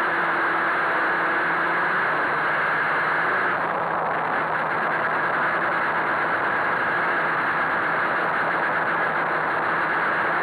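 Quadcopter's electric motors and propellers whirring steadily in flight, heard close up from the camera mounted on the craft.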